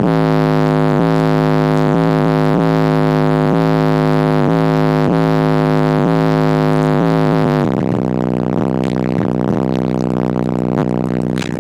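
Rap track playing loud through a car stereo with a 12-inch Fi X subwoofer, a deep bass line pulsing about twice a second as the test of the freshly resoldered subwoofer. About eight seconds in the lowest bass drops away and the beat changes.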